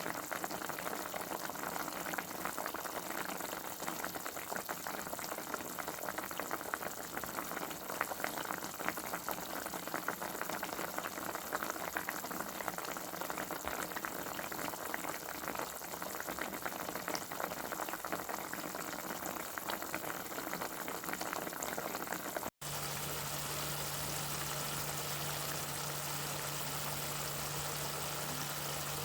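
Liquid boiling, a dense, steady bubbling crackle. About three-quarters of the way through it cuts off abruptly and gives way to a steady machine hum with a low tone.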